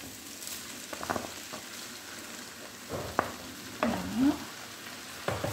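Grated vegetables frying in a pan on high heat, with a steady sizzle, as rice vermicelli is tipped in from a plastic bowl. A few light knocks sound through it.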